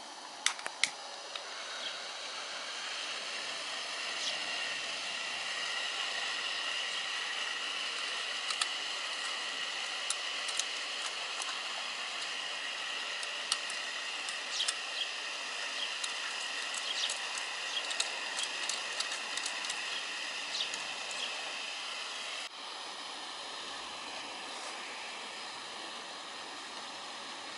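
Small electric suction fan on a model steam boiler's chimney running steadily with a hiss and faint whine, drawing up the freshly lit coal fire; light clicks and taps from coal and tools come and go over it, and the sound drops slightly near the end.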